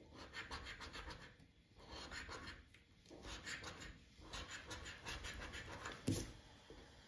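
A coin scraping the silver coating off a paper FDJ X20 scratch card, faint, in several short runs of quick strokes with brief pauses between them. A single sharp knock comes about six seconds in.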